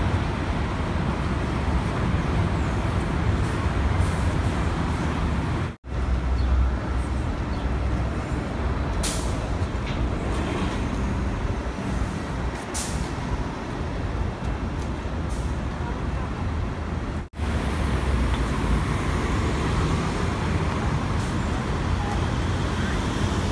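City street traffic with MTA transit buses running past, their diesel engines rumbling low under the general road noise. Two short air-brake hisses come in the middle. The sound cuts out abruptly twice for a split second.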